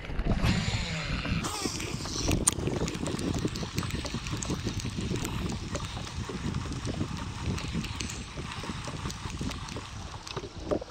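Abu Garcia Revo Toro S baitcasting reel: line paying off the spool on a cast near the start, then the handle cranked on the retrieve. Many small irregular clicks and knocks over a low rumble of wind and water.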